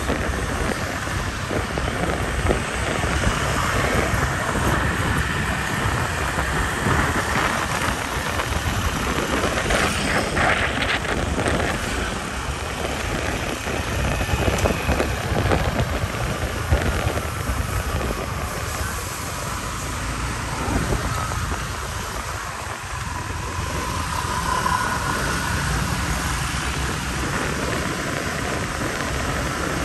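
Motorbike ride: wind rushing and buffeting over the microphone, over the hum of the engine and passing street traffic.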